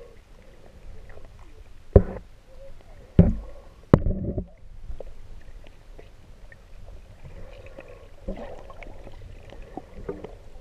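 Muffled underwater sound heard through a camera housing: low churning of water and bubbles, with three loud thumps about two, three and four seconds in.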